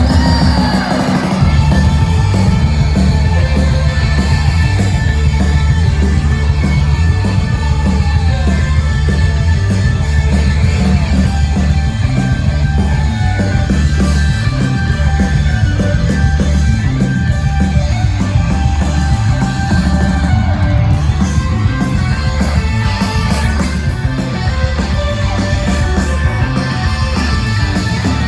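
Live rock band playing loud and fast, with heavy bass and drums, electric guitars and shouted vocals, as heard on a crowd recording.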